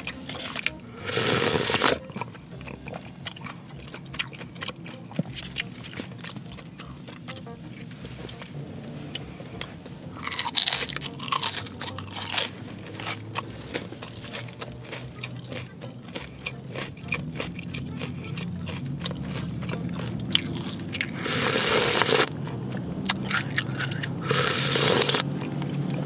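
Close-miked eating of spicy noodle soup: steady wet chewing and smacking clicks, broken four times by loud airy puffs as she breathes out hard through pursed lips.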